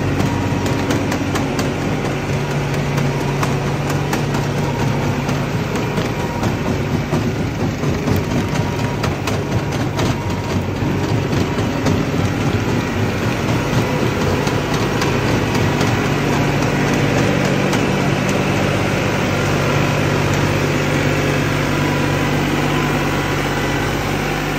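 Tractor engine running steadily under load, driving a Jaylor 5350 vertical TMR mixer and its side discharge conveyor as the wagon unloads a heifer ration, with a continuous rapid clatter from the conveyor and falling feed.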